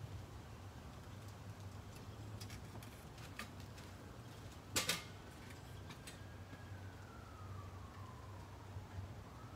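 A distant siren wailing: from about halfway through, one slow rise and fall that begins to rise again at the end, over a low steady rumble. A sharp click, the loudest moment, comes just before the wail starts, after a few fainter clicks.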